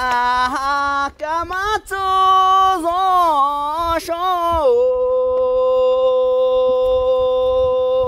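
A solo voice singing a sliding, ornamented melody with quick turns between notes, then settling about five seconds in onto one long held note.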